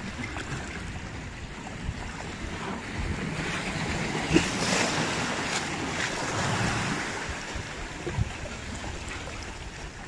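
Big sea waves breaking and washing over rocks as a steady rushing surf, with wind buffeting the microphone.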